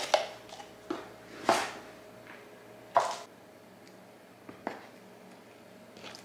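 Handling noises from potting plant cuttings: about five short rustles and knocks, the loudest about a second and a half and three seconds in, over a faint steady hum.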